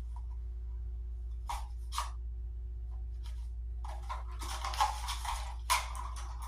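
Short bursts of scratchy rustling, the longest a little past the middle, over a steady low hum.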